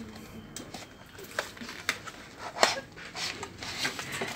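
Cardboard and plastic packaging of a 2.5-inch SSD being handled as the drive is slid out of its box: scattered light taps and clicks with soft rustling.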